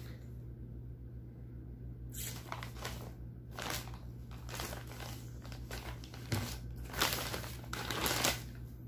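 Thin plastic carrier bag crinkling and rustling as hands rummage in it and pull out a plastic-wrapped item. It starts about two seconds in and is loudest near the end, over a steady low hum.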